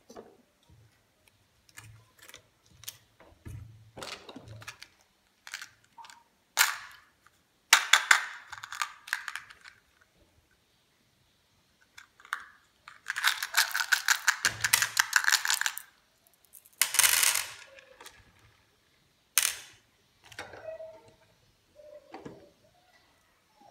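Light clicks and taps of cardboard jigsaw puzzle pieces being handled, then loud crinkling and tearing of a small candy packet in several bursts, the longest a few seconds long.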